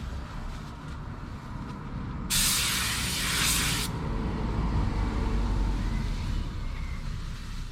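A paint spray gun lets out a single burst of compressed-air hiss lasting about a second and a half, a few seconds in, over a steady low rumble.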